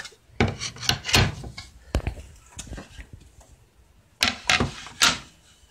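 Irregular knocks and clunks of things being handled on a kitchen counter, about half a dozen over a few seconds, the sharpest about two seconds in.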